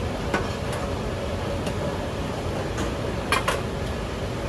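Kitchen clatter: a few light clinks and taps of utensils against bowls and metal ware, the loudest a quick double clink about three and a half seconds in, over a steady low background rumble.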